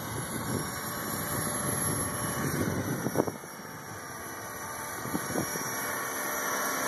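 Radio-controlled model aircraft in flight, its motor a steady high whine under wind noise on the microphone, with short louder bumps about three seconds in and again a little after five seconds.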